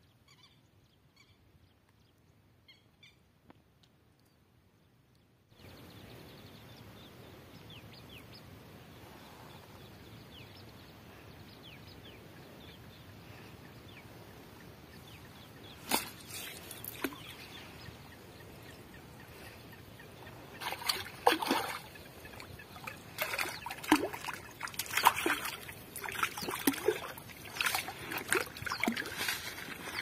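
Water splashing and sloshing in irregular bursts, a couple at first and then many in the last ten seconds, over a steady hiss with faint bird chirps.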